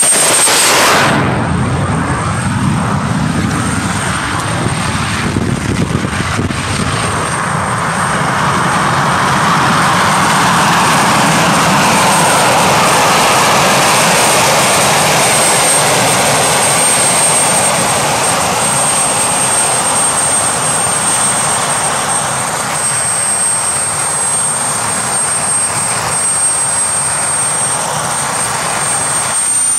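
Homemade jet engine built from a turbocharger, running steadily: a constant high whine over a loud rushing exhaust blast.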